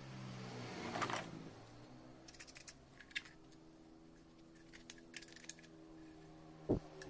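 Quiet steady hum with scattered light clicks and taps, a louder click about a second in and another near the end.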